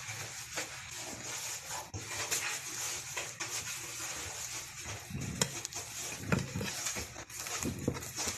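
Hands working pastry dough around sausages on a plastic cutting mat: scattered light taps, clicks and rustles, with a few soft thumps in the second half, over a steady hiss.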